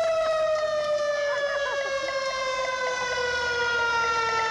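Vintage fire engine's siren sounding one long continuous wail, its pitch slowly falling throughout.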